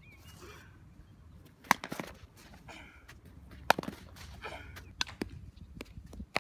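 Two sharp smacks of a softball, about two seconds apart, as ball meets bat and leather glove in infield fielding practice, with softer scuffs of cleats on the dirt between them.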